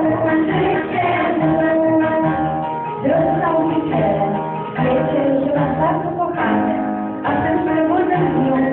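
A group of children singing a song to instrumental accompaniment.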